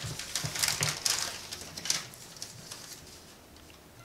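Clear plastic bag crinkling and rustling as hands rummage in it and pull out a roll of film; the rustling dies away after about two seconds.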